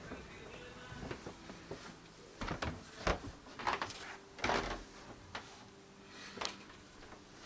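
A series of knocks and clunks, with several close together around the middle and one more near the end, over a faint steady tone.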